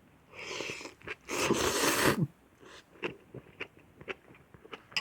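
Close-up eating sounds of Korean instant noodles and kimchi: two loud noisy mouthfuls, the second and louder lasting about a second, followed by soft clicking chewing.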